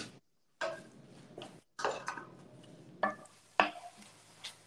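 Cooking utensil knocking and scraping against a pan while stirring: about five separate sharp clicks and knocks, some with a short metallic ring. The sound drops out completely for moments in between.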